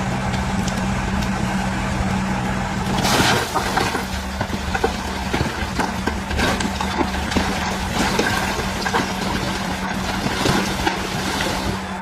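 Bulldozer's diesel engine running steadily, with many short clanks and rattles and a loud burst of noise about three seconds in.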